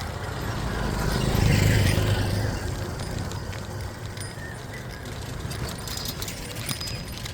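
A motor vehicle's engine passing close, loudest about a second and a half in and then fading away, followed by a few light metallic clinks near the end.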